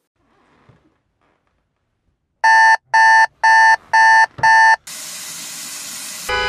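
Alarm clock beeping: five loud electronic beeps, about two a second, followed by a steady hiss.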